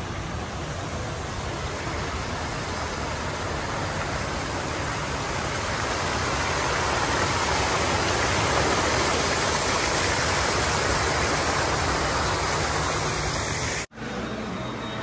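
Water cascading down a stone wall into a pool: a steady rushing splash that swells a little in the middle and cuts off abruptly near the end.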